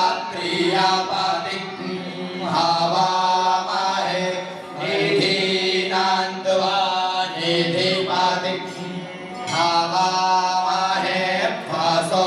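Male voices chanting Sanskrit mantras in a melodic recitation, phrase after phrase with short breaks between, over a steady low drone.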